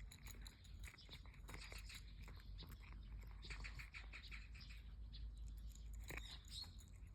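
Cat eating, with faint irregular crunches and clicks of chewing in small clusters, over a steady low rumble.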